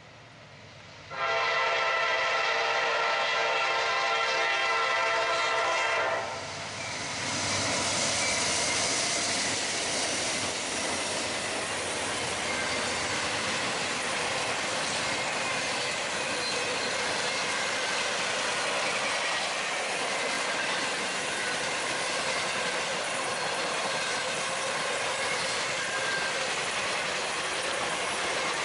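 A train's multi-note air horn sounds one long blast of about five seconds. The train then rolls past with a steady rush of wheel-on-rail noise.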